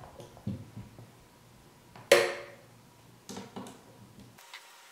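Hands working hardware inside a steel PC case: small clicks and knocks, and one loud metallic clank about two seconds in that rings briefly, followed by a few lighter knocks.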